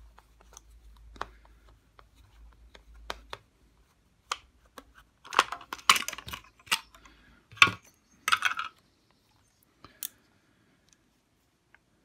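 Light clicks, knocks and rattles of hard plastic parts being handled as the clear plastic cover over an electric shower's wiring is unscrewed and lifted off and the switch block is moved. There is a denser clatter a little past the middle.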